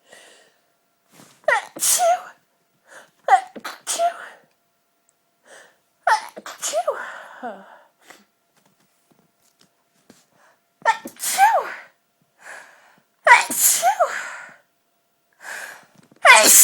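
A woman sneezing over and over, a fit of about half a dozen voiced sneezes with short pauses between them, set off by her allergy to dust.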